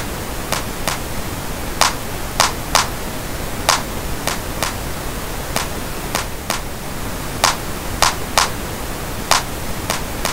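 Steady pink noise, used as a mixing reference, under a looped bongo sample of short dry hits in a repeating three-hit pattern about every two seconds. The sample is heard in turn with and without its parametric EQ, which boosts its low end.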